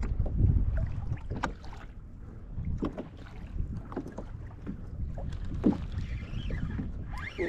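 Wind buffeting the microphone with water slapping against a fishing kayak's hull on choppy sea, gusting hardest in the first second, with scattered short knocks.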